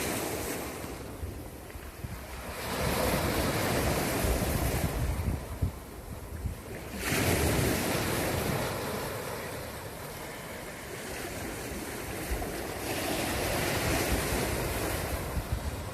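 Sea surf washing in, the hiss swelling three times as waves come through.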